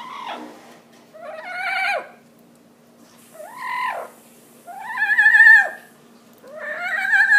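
Pet parrot calling: about four separate wavering calls, each close to a second long, rising a little and dropping off at the end.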